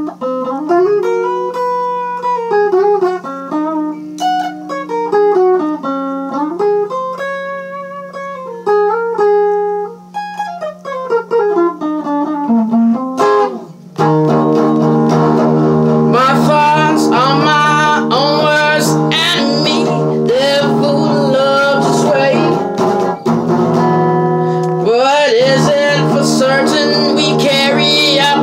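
Acoustic guitar playing a bluesy single-note melody with bent notes over a droning low string. About halfway through it breaks into loud strummed chords, with singing over them.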